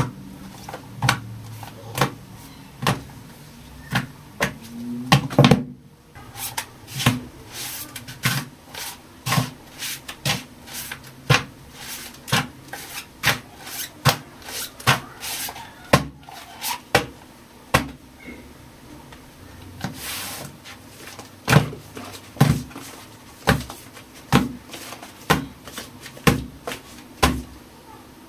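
Books, notebooks and folders slapped down one after another onto a stack, a long run of sharp knocks about once a second at first, then nearly twice a second.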